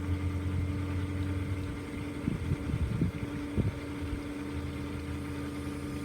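Steady hum of a running motor, holding an even pitch, with a few low bumps about two to four seconds in.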